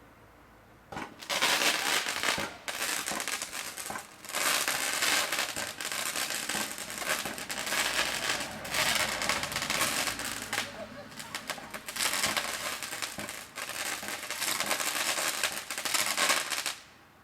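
Crackling fireworks: dense, rapid crackle in several waves with brief lulls. It starts about a second in and cuts off suddenly near the end.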